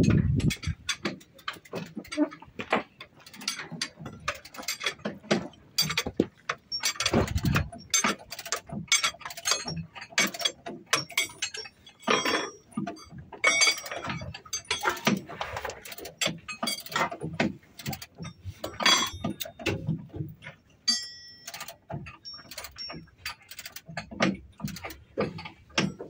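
Steel tools and parts clinking and knocking irregularly, with a few short metallic rings, as mechanics work on an excavator's track roller.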